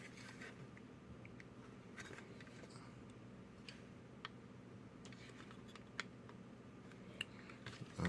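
Sparse small clicks and taps of a plastic and diecast model truck and its wheels being handled during a test fit, over a faint steady hum.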